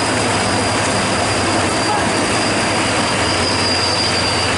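Heavy rain hissing down while a loaded fuel tanker truck crawls through floodwater, its engine a low hum under a steady high-pitched brake squeal.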